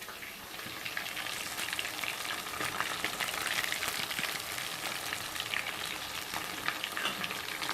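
Marinated chicken pieces frying in hot oil: a steady sizzle with dense fine crackling, a little louder from about a second in.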